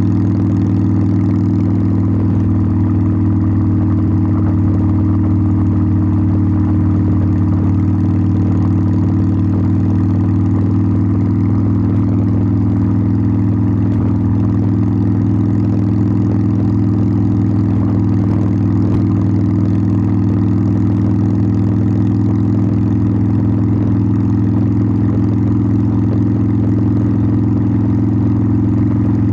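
Harley-Davidson Sportster 1200's air-cooled V-twin running at a steady, unchanging speed through its exhaust, a loud low even note with no revving.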